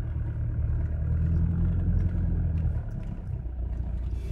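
Mitsubishi Delica L400 van driving slowly over a muddy, rutted lane, heard from inside the cab: a low engine rumble that swells through the first couple of seconds and eases off about three seconds in, with a few faint knocks.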